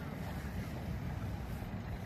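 Steady low rumble with no distinct events, its energy mostly in the bass.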